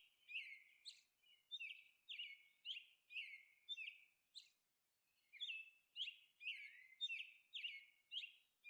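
Faint, high bird chirps, short falling notes repeated about twice a second, with a pause of about a second midway.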